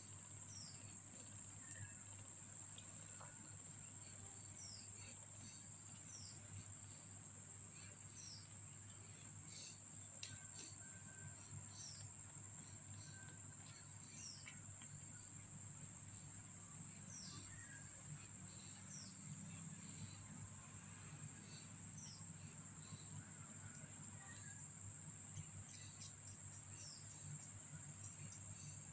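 Faint background sound: a steady high-pitched insect drone with scattered short, falling chirps, over a low steady hum.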